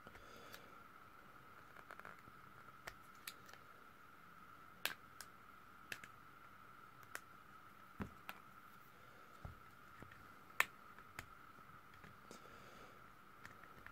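Scattered faint clicks and ticks of pry tools, a plastic pick and a slim metal tool, working around the edge of a Turkcell T60 smartphone to separate its screen from the frame. The two sharpest snaps come about five seconds in and near ten and a half seconds.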